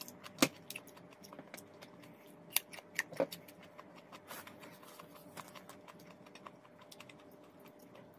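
Close-up crunching of a raw cucumber being bitten and chewed: a sharp crunch about half a second in, then a run of crisp, irregular clicks and cracks, loudest between about two and a half and three and a half seconds in.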